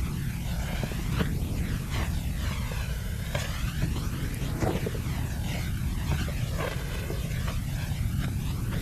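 Aircraft engine rumbling steadily: a deep, even drone with a hiss above it that slowly sweeps and swirls.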